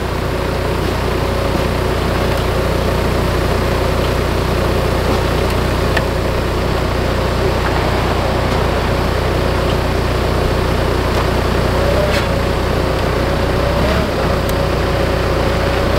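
Gehl telehandler's diesel engine idling steadily.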